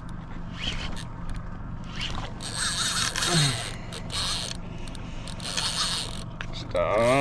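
Spinning fishing reel being cranked in short rasping bursts while a hooked fish is on, over a steady low hum from the boat. A brief grunt comes about the middle and a shout near the end.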